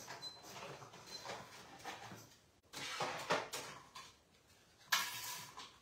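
Irregular handling noises: light knocks, scrapes and rustles, with two louder scraping bursts about three and five seconds in, the second carrying a brief squeak.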